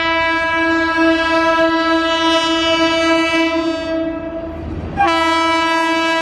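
Electric locomotive's air horn sounding one long, steady blast, then a second long blast about five seconds in, over the low rumble of the approaching train.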